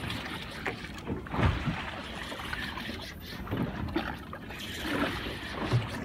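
Wind and sea water washing around a small boat at sea, with a few dull bumps; the loudest comes about a second and a half in.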